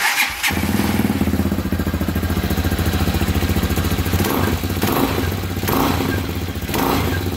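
Hawk DLX 250 EFI motorcycle's single-cylinder four-stroke engine starting up and then idling with a steady, even beat. It runs without the engine rattle it had before, now that the backed-out centrifugal oil filter nut has been retightened.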